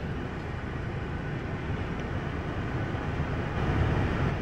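Steady rumble of a car heard from inside its cabin: a low drone with a hiss over it, swelling a little near the end.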